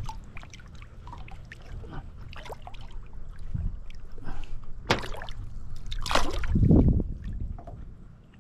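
Hooked golden perch (yellowbelly) splashing at the surface beside a small boat's hull as it is landed by hand, with small splashes and drips throughout. Two louder splashes come later on.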